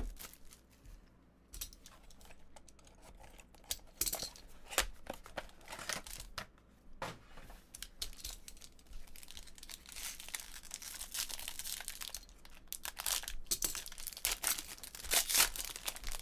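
A sealed trading card box and its foil-wrapped pack torn open and crinkled by hand, in irregular crackling bursts that grow busier in the second half.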